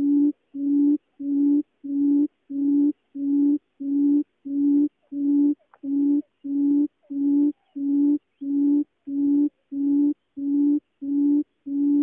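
A female barred buttonquail gives its booming call: a long, steady series of low hooting notes, evenly spaced at about one and a half per second.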